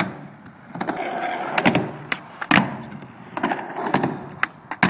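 Skateboard wheels rolling on a ramp, with several sharp clacks of the board hitting the ramp.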